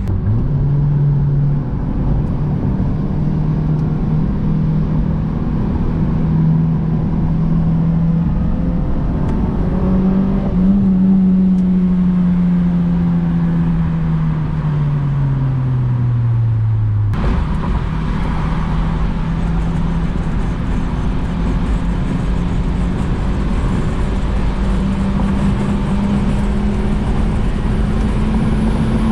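Honda H22A inline-four engine of an Accord wagon on the move: a steady drone that falls away slowly over several seconds as the car slows, breaks off abruptly about two-thirds of the way through, then holds steady and climbs again near the end.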